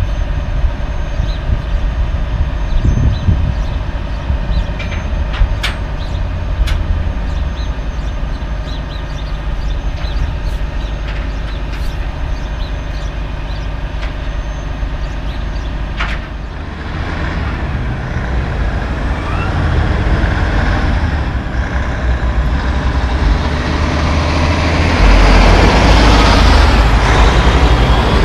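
Diesel engine of a Peterbilt 379 car-hauler rig running steadily with a few sharp clicks, then, about halfway through, growing louder and noisier as the loaded truck gets moving and passes close by.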